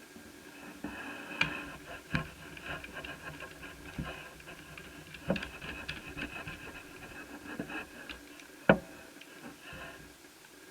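Small clicks, taps and knocks of netbook parts and tools being handled during reassembly, irregular and scattered, with one sharper knock near the end.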